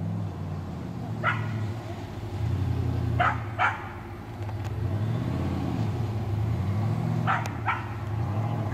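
Formula Offroad buggy's engine working hard up a steep sand hill, revving up and down in slow swells of pitch. A few short, sharp calls cut in over it, the later ones in pairs.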